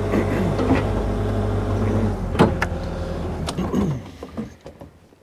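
Bobcat E55 mini excavator's diesel engine running steadily, with a sharp click about two and a half seconds in; then the engine winds down and stops a little over halfway through.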